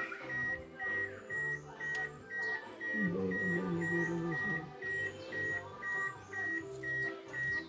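Steady electronic beeping, short high beeps about twice a second, over background music.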